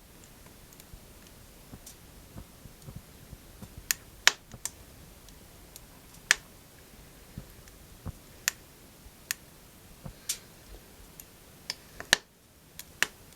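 Firewood burning in a small wood stove, crackling with irregular sharp pops, a few of them much louder than the rest.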